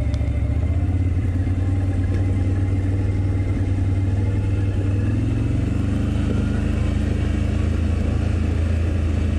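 Can-Am Outlander ATV engine running steadily at low trail speed, its note dropping slightly about halfway through.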